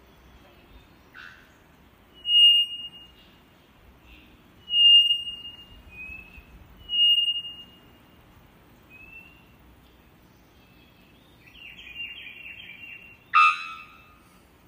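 Songbirds singing: clear, high whistled notes, three loud ones about two and a half seconds apart with softer notes between, then a quick fluttering run of notes and a sharp, louder call near the end.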